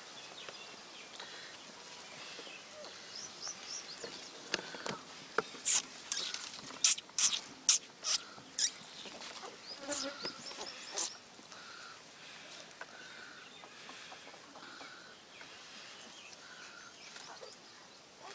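Very young puppies squeaking and whimpering as they are handled, with a run of short, sharp, high squeaks from about five to eleven seconds in, then fainter whimpers.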